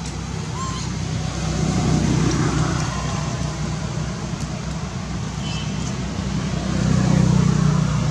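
Low engine hum of passing motor traffic, swelling about two seconds in and again near the end.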